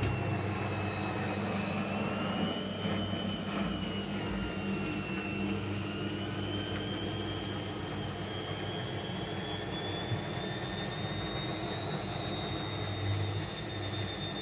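Front-loading washing machine spinning its drum in the final spin: a steady motor hum with a high motor whine that wavers in pitch and then climbs slowly as the drum speeds up. It runs smoothly, without rattling.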